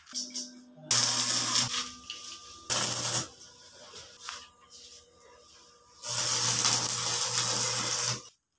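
Electric arc welding on steel bars: the arc crackles and hisses in three spells, a short one about a second in, another around three seconds in, and a longer one from about six seconds until just before the end, with a steady hum beneath it.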